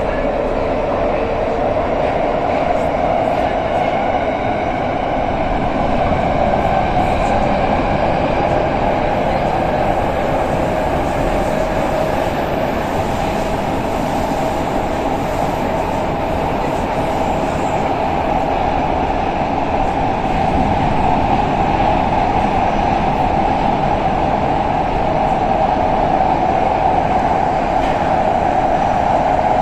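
Soviet-built 81-572 metro car running through a tunnel, heard from inside the passenger compartment: a steady loud rumble of wheels on rail with a motor whine that climbs in pitch over the first couple of seconds and then holds, wavering a little.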